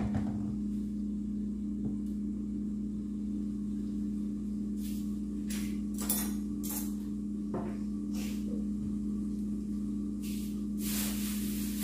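Covered pot of spinach and eggs cooking on a gas burner: faint crackles between about five and eight seconds in, then a hiss of sizzling that builds near the end, over a steady low hum.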